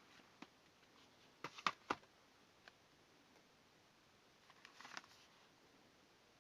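Handling noise from unboxing a motherboard: scattered clicks and brief rustles of the packaging. Two sharp clicks about two seconds in are the loudest, and another short cluster of rustling clicks comes near the five-second mark.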